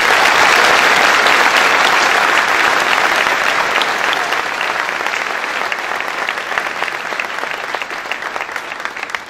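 Audience applauding, loudest at the start and slowly dying down, with single claps standing out more toward the end.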